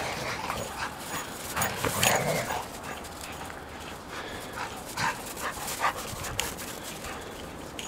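German Shepherd dogs playing, with a loud dog vocalisation about two seconds in and several shorter dog sounds later on.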